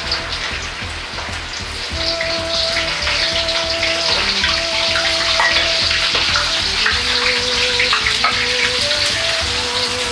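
Vegetables deep-frying in hot oil in a wok: a dense, steady crackling sizzle. A simple background melody plays underneath.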